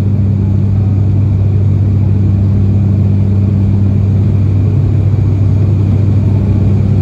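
Steady cabin drone of an ATR 72-600's Pratt & Whitney PW127M turboprop and six-bladed propeller climbing out after take-off, heard inside the cabin: a loud, even hum with a strong low propeller tone and its overtone.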